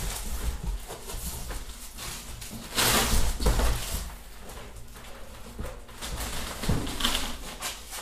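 Handling noises as a car fuel tank is lifted and set on a workbench: a stretch of scraping and rustling about three seconds in, then scattered knocks and a dull thump later on.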